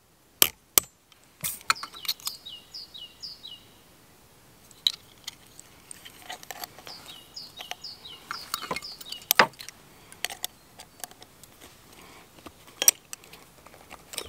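Hammer striking a piece of copper on the horn of a small anvil, twice just after the start, followed by scattered light metallic taps and clicks as the piece is handled and worked with pliers. A songbird sings a quick run of falling chirps three times, near the start, in the middle and at the end.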